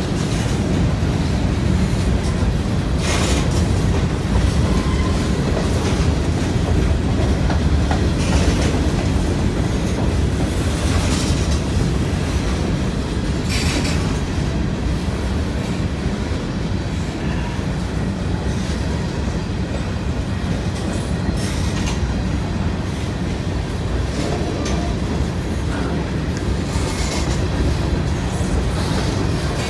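Freight train's covered hopper cars rolling past close by: a steady, loud rumble of steel wheels on rail, with several brief higher-pitched rattles or screeches.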